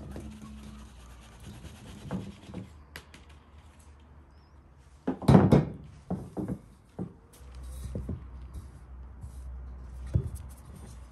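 Flour being sifted through a wooden-rimmed drum sieve over an enamel bowl: soft rubbing and scratching as the sieve is shaken. A cluster of louder knocks comes about five seconds in, and one more knock near the end.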